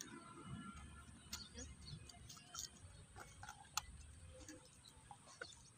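Quiet outdoor ambience with faint, scattered sharp clicks and ticks, the clearest about a second and a half in and again near the two-thirds mark.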